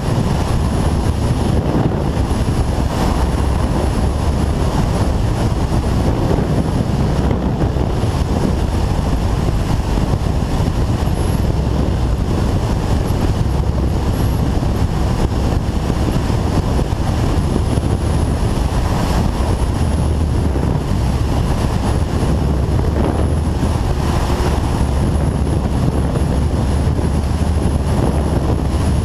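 Steady wind rush and road noise of a Kawasaki ZZR 1400 sport motorcycle ridden at speed, the wind heavy and buffeting on the microphone.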